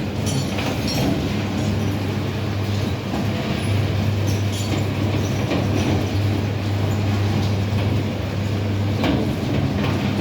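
Rotary drum pellet dryer running: a steady machine hum with a rumbling, rattling noise and scattered clicks over it.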